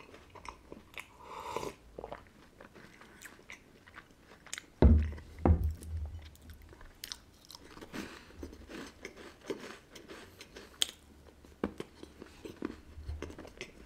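Crunchy wafer biscuits being bitten and chewed close to the microphone, with scattered crackles. A couple of louder deep knocks come about five seconds in.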